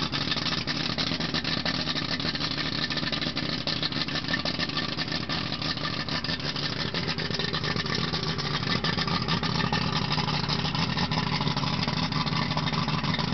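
Yamaha 225 hp two-stroke V6 outboard idling steadily out of the water, its exhaust spraying cooling water.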